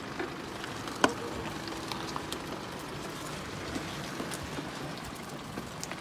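Steady hiss of creek water running through a ford, with scattered small ticks and one sharp click about a second in.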